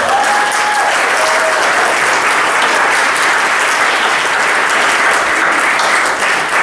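Congregation applauding in a steady, dense clatter of many hands, with a brief high call near the start.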